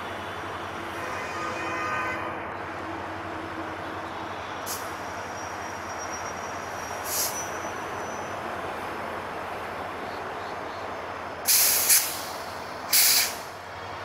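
Stationary EMD GT38AC diesel-electric locomotive idling steadily, with sharp hisses of compressed air from its air brake system: a short one about a third of the way in, another around the middle, and two loud ones close together near the end.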